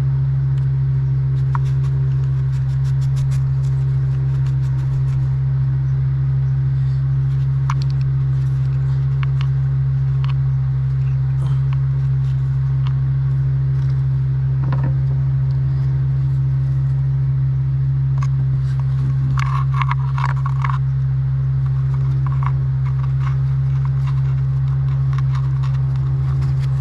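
A steady low hum runs throughout, with scattered light clicks, metal clinks and scrapes of parts and tools being handled, a brief flurry of them about twenty seconds in.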